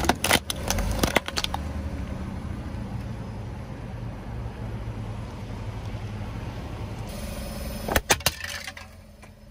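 Car tyre rolling slowly over crunchy objects and crushing them: a run of sharp cracks in the first second and a half and another brief run about eight seconds in, over the low rumble of the car.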